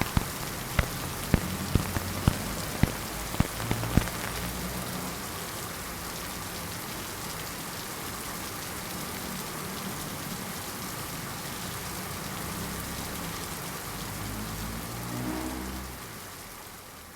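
Steady rain falling, with loud sharp drop-like taps about twice a second during the first four seconds; the rain fades out near the end.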